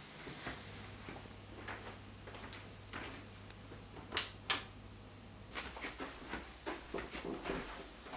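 Footsteps walking through a room, with two sharp clicks close together about four seconds in from a light switch being flicked, the loudest sounds here. The steps come more often after the clicks.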